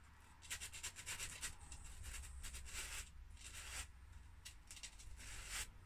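Metal legs of a DIP ROM chip rubbed back and forth on sandpaper in a run of short strokes, scouring dirt off the pins so they make good contact in their socket.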